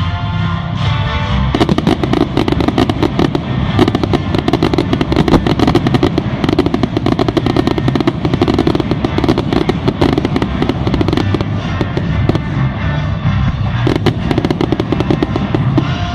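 Fireworks going off in a dense run of rapid crackles and bangs, starting about a second and a half in, with music playing underneath.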